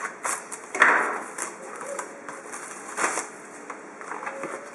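A cardboard trading-card box being handled and opened by hand, with irregular scraping, rustling and clicking of the cardboard. The louder scrapes come about a second in and again around three seconds in.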